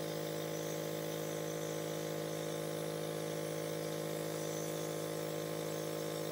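Nebulizer's electric compressor running with a steady buzzing hum.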